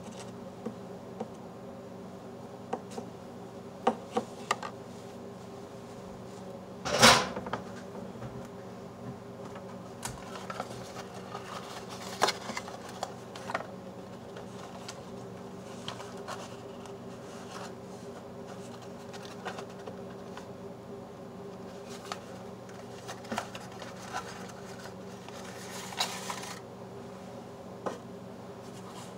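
Handling noise from a glass projector lamp, a cloth rag and a cardboard lamp box on a wooden tabletop: scattered light taps, knocks and rustles, the loudest a short scuffing burst about seven seconds in. A steady low hum runs underneath.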